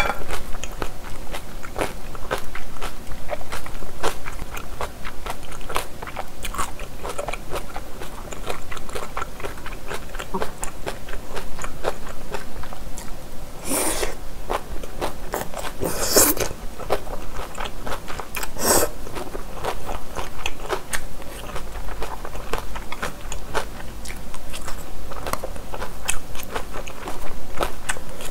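Close-miked chewing of japchae glass noodles and vegetables, with many small wet mouth clicks. There are three louder slurps of noodles about 14, 16 and 19 seconds in.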